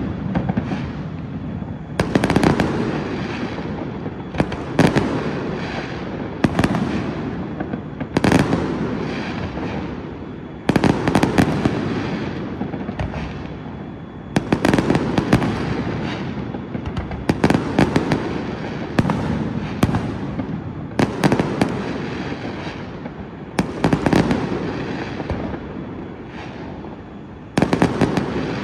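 Aerial firework shells bursting one after another, a sharp bang every second or two, each trailing off in a long rolling echo. Brief lulls come before the bigger volleys about 11 and 14 seconds in and near the end.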